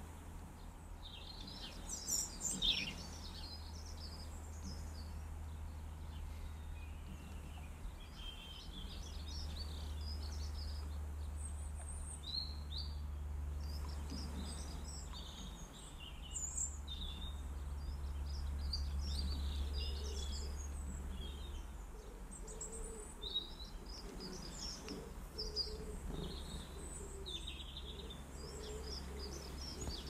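Garden songbirds chirping and singing in many short, scattered calls, over a steady low rumble.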